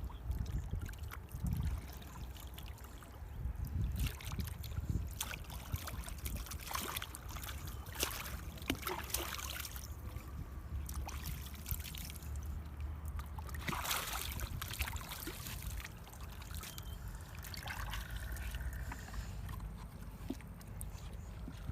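Shallow water splashing and trickling, with scattered splashes and knocks, the biggest about a third of the way in and again past the middle, over a steady low rumble.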